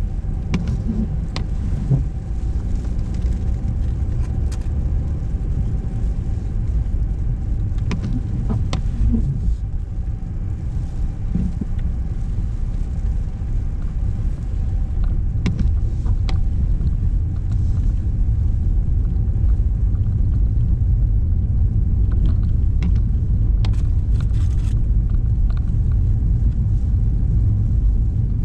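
A car driving along city streets: a steady low rumble of engine and road noise, with a few short clicks or knocks here and there.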